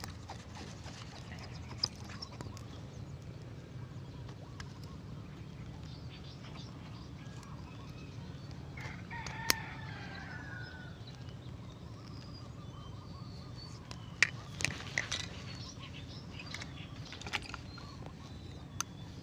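A rooster crows once, about halfway through, in a single falling call over a steady low hum. A few sharp clicks and knocks come later.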